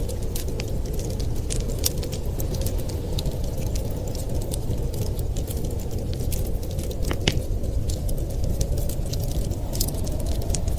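A wood fire crackling with scattered sharp pops and snaps over a steady low rush of blizzard wind.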